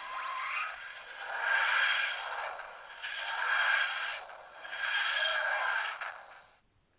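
Doctor Who sound-effect keyring playing an electronic sound effect through its tiny speaker, thin and with no bass: three rising and falling swells about two seconds apart, dying away near the end.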